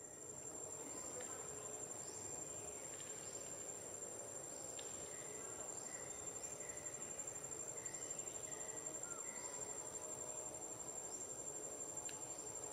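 Insects trilling in the forest: a steady high-pitched buzz, with faint short chirps repeating about once a second.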